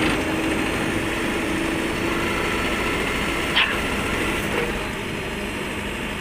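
Excavator engine running steadily while its vibratory roller-drum compactor attachment works. There is a brief sharp, high-pitched clank about three and a half seconds in.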